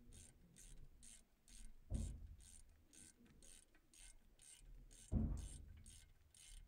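Ratchet wrench swung back and forth to run in a front brake caliper sliding bolt, its pawl clicking about twice a second. Two dull thumps come about two and five seconds in.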